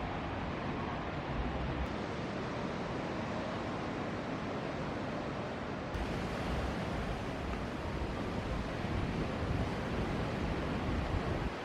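A steady rush of ocean surf breaking, with wind buffeting the microphone.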